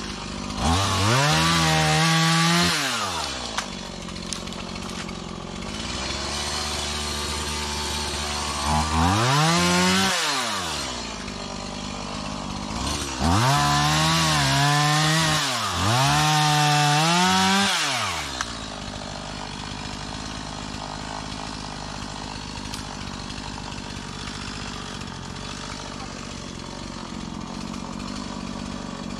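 Small Stihl two-stroke chainsaw revved up to full throttle four times for a couple of seconds each, cutting through thin stems, dropping back to idle between revs. It idles steadily through the last ten seconds or so.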